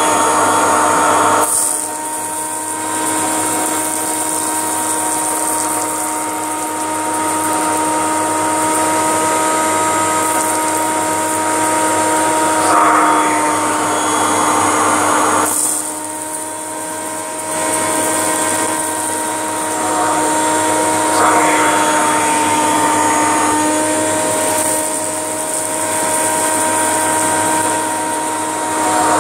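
Kirby G6 vacuum cleaner's motor running with a steady high whine as its hose and upholstery nozzle suck up dry rice from a carpet mat, with a few short crunchy, rattling swells as grains go up the hose.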